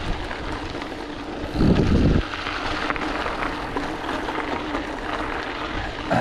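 Mountain bike tyres rolling on a gravel road, a steady crunching rumble with wind on the microphone, and a brief louder low rumble about two seconds in.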